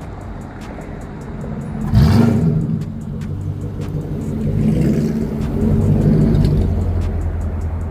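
Ford 4.6-litre V8 running through a 3-inch X-pipe exhaust: idling, blipped sharply about two seconds in, then revved up and held around five to six seconds in before settling back to idle.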